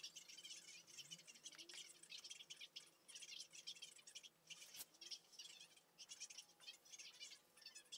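Faint, irregular rustling and scratching of stiff tulle netting being handled on a dress form, with one sharp click a little under five seconds in.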